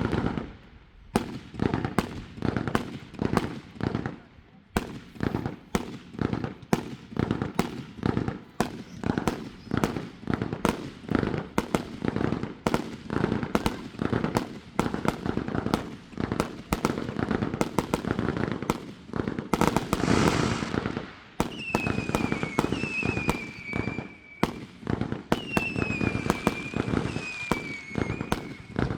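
Consumer fireworks going off in a dense barrage: rapid bangs and pops several times a second, with no let-up. In the last third, several short whistles fall in pitch among the bangs.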